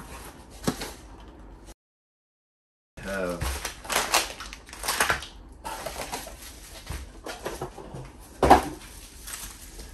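Unboxing handling noise: cardboard box flaps opened and plastic-bagged parts rustling and crinkling, with a sharp knock about eight and a half seconds in as something is put down on the table. The sound drops to dead silence for about a second, roughly two seconds in.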